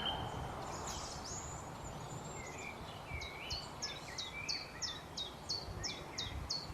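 Two birds calling back and forth. One gives a rapid run of short, sharp falling 'cheep' notes, about three a second, which the recordist takes for a chaffinch. Between them are lower, more varied phrases from a bird he takes for a thrush, perhaps a mistle thrush. The birdsong is faint over a background hiss of open air.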